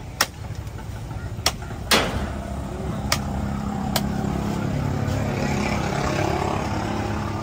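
A cleaver chops a large fish on a wooden block: five sharp chops in the first four seconds, the loudest about two seconds in. From about two seconds in, a motor vehicle engine runs steadily close by, with voices under it.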